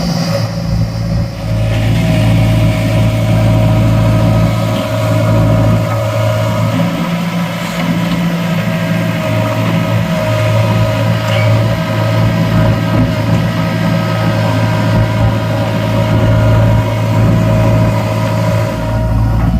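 Heavy diesel engine running steadily, with a steady whine above the low engine note.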